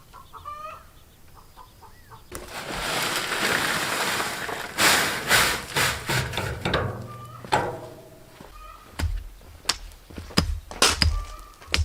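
Chickens clucking, with a few seconds of rushing, scraping noise early on and a run of sharp knocks and thuds near the end.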